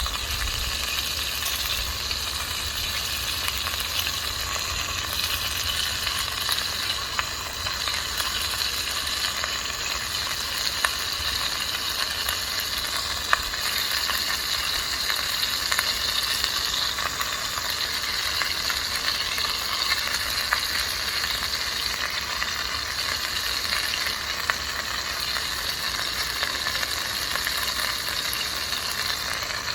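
Food frying in a pan over a wood fire: a steady sizzle with scattered small pops.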